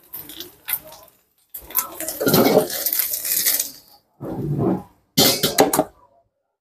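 Steel wok and metal spatula scraping and clanking as stir-fried wide rice noodles are tipped out into a bowl and the wok is wiped clean. It comes in several short bursts broken by abrupt silences.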